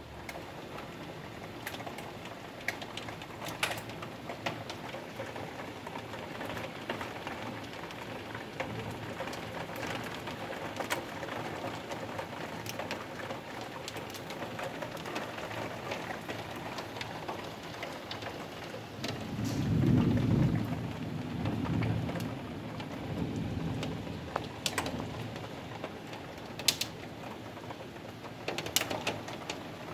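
Hail and rain pattering steadily, with scattered sharp ticks of hailstones striking. A low rumble of thunder comes about twenty seconds in and is the loudest part.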